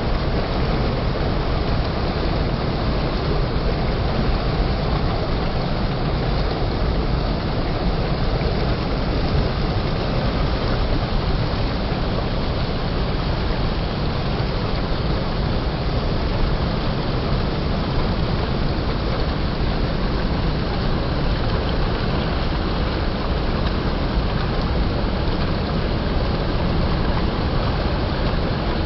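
Steady rushing water, a continuous even noise with no breaks or changes.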